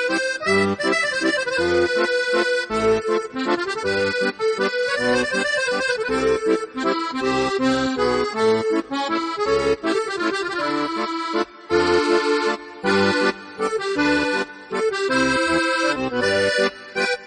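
Instrumental music: a melody of sustained notes over low bass notes that recur at fairly regular intervals.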